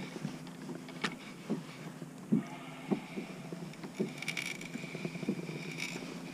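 Small waves slapping against a plastic kayak hull in irregular knocks over a steady low hum, with a stretch of fine high rattling from about four to six seconds in.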